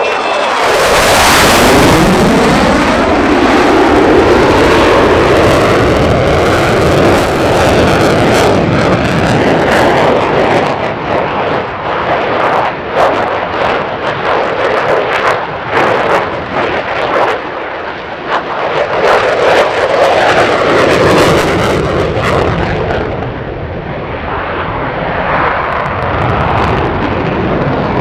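F-16 fighter jet's engine roaring as it flies past. In the first couple of seconds the pitch falls sharply as it goes by, then a loud rumbling roar full of crackle follows, swelling again about two-thirds through.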